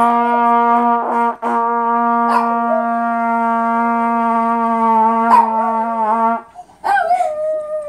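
A brass instrument holds one long steady note, briefly broken about a second in, while a small dog howls along with it. The note stops about six seconds in and the dog's howl carries on alone, falling in pitch.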